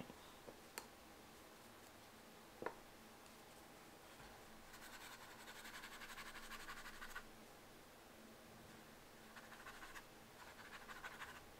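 Faint scrubbing of a wet paintbrush over textured watercolor-style paper, dissolving swatches of Caran d'Ache Neocolor II water-soluble wax pastel, in two spells: about five to seven seconds in and again near the end. A single light tap comes a few seconds in.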